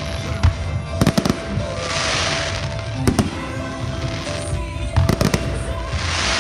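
Fireworks display: clusters of sharp bangs from bursting shells about a second in, about three seconds in and about five seconds in, with a hissing fizz between them.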